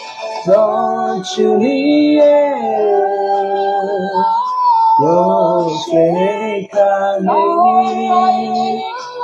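A man singing a slow melody unaccompanied, holding long drawn-out notes with short breaks between phrases.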